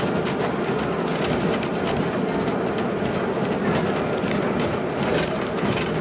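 City transit bus heard from inside while moving: steady engine and road noise, with a fast, irregular rattle of loose interior panels and windows.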